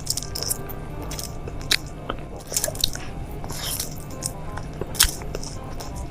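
Close-miked eating: sharp crunching bites and chewing, the loudest crunches about two seconds in, around three seconds in, and near the end, over background music.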